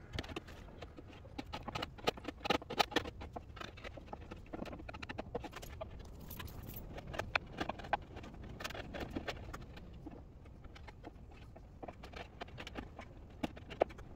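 A small metal hand blade scraping along the wooden edge of an oak cabinet door, with irregular sharp clicks and short scratches as it is worked in strokes.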